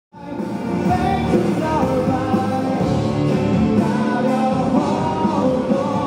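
Live rock band performing with a lead singer and electric bass, heard in a concert hall. The sound cuts in abruptly just after the start.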